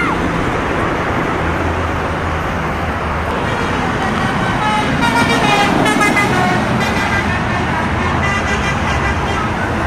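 A bus's telolet horn playing its multi-note melody, stepping between several pitches for about three seconds from roughly a third of the way in, over steady road-traffic and engine noise.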